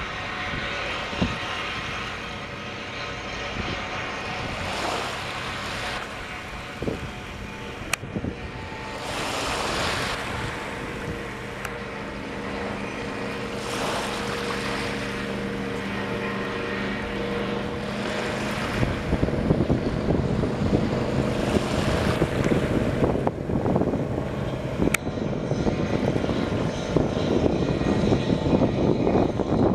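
Inboard engine of a wakeboard boat running steadily at speed on open water, growing louder and rougher in the last third as the boat draws near.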